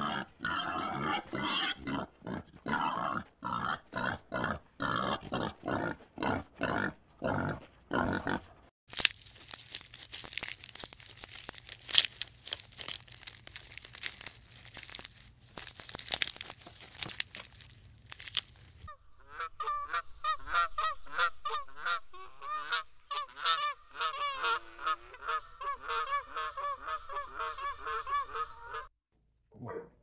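Boars grunting in a quick series for about nine seconds. Then comes a stretch of crackling noise with sharp clicks, followed by an animal's rapid repeated pitched calls, several a second, from about 19 seconds in.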